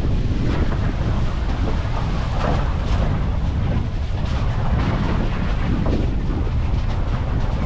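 Wind buffeting the microphone over the steady low rumble of a moving pickup truck, heard from its open back.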